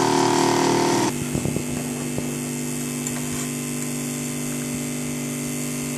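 Home cotton candy machine running: its spinner motor gives a steady hum. About a second in, a louder layer with higher tones cuts off suddenly, leaving the hum, and a few faint knocks follow soon after.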